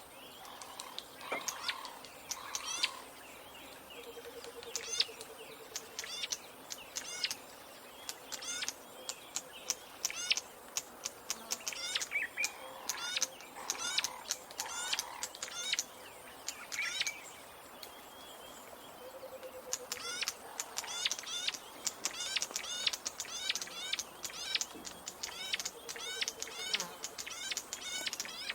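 Birds chirping: runs of many short, high, quickly falling chirps, broken by a couple of brief pauses, with a lower buzzy trill heard three times.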